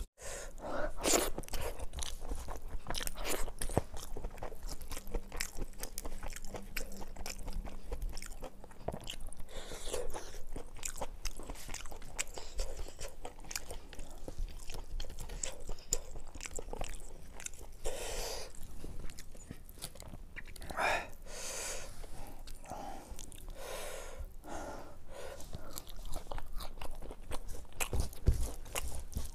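Close-miked eating sounds: chewing, biting and many short, irregular crunches of crisp fried fish and rice eaten by hand.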